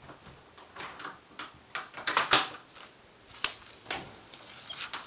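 A run of irregular clicks and knocks, about ten in all, the loudest a sharp knock a little over two seconds in.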